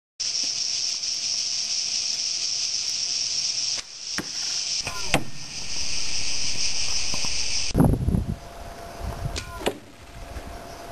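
A steady, high insect chorus. A couple of sharp snaps about four to five seconds in: a recurve bow's string being loosed and the arrow striking the target. After a cut near eight seconds the chorus stops and low thuds and clicks from handling the bow follow.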